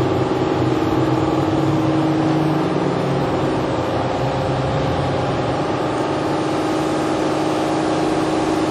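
Toshiba MPF-2114C bridge-type vertical machining center running with its spindle turning at about 2,000 RPM: a steady machine hum with several constant tones.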